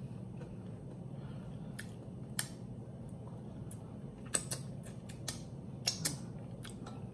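Close-miked mouth sounds of eating: about seven short, sharp wet clicks and smacks from chewing and licking the fingers, most of them in the second half, over a low steady hum.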